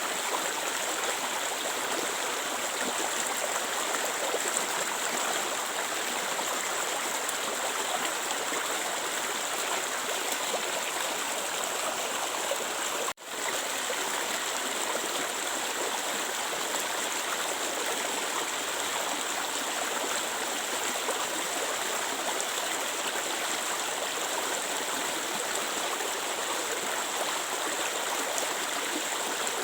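Clear stream water flowing steadily, with an even rushing and burbling. The sound drops out for a split second about halfway through.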